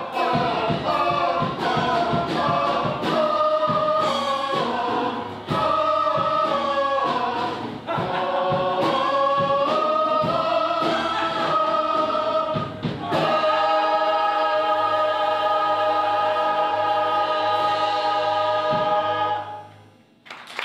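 Chorus of stage-musical voices singing together, then closing on one long held chord that cuts off shortly before the end.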